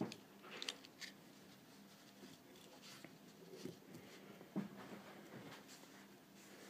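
Faint handling noises from a steel-and-ceramic watch bracelet being picked up and turned over on a table: a few scattered light clicks of the links and soft scraping.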